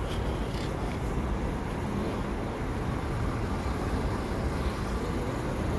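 Steady city street traffic noise: an even low rumble with no distinct events standing out.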